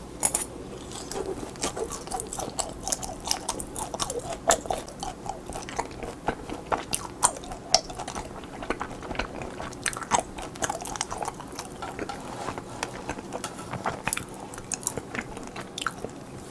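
Close-up chewing of a pan-fried hotteok dumpling: a bite about a third of a second in, then crunchy, wet chewing with many quick mouth clicks.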